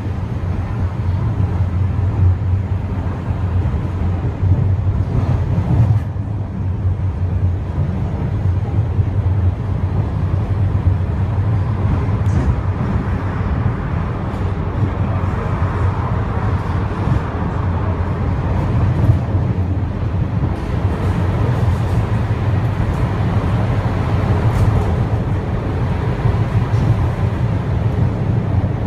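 Wuppertal Schwebebahn Generation 15 suspension railway car running along its overhead rail: a steady low rumble of wheels and drive with a rolling noise that swells a little around the middle.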